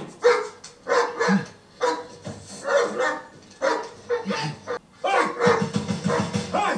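A man barking like a dog: a string of short, loud barks that come faster and closer together near the end.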